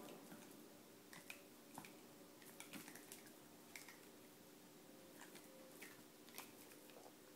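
Faint, irregular clicks and soft taps from a miniature pinscher puppy chewing and nosing a rubber Kong toy, over a low steady hum.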